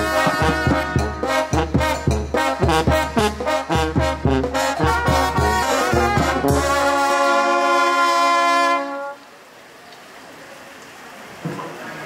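Mexican brass banda playing a cumbia with a steady beat. It ends on a long held chord that cuts off about nine seconds in. Only low background noise follows, with a single knock near the end.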